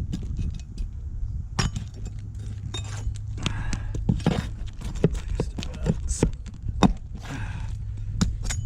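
Roof shingles being worked loose by hand and tool to get at their nails: a string of sharp clicks and knocks with short scraping rustles, over a steady low rumble.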